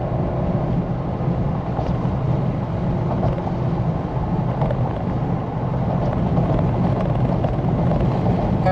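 Car driving at highway speed: steady tyre and wind noise with a low rumble.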